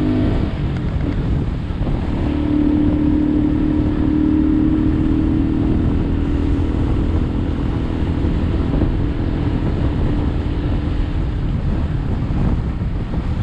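Motorbike engine running at a steady cruise, with wind buffeting the microphone. The engine note holds steady most of the way and drops back near the end.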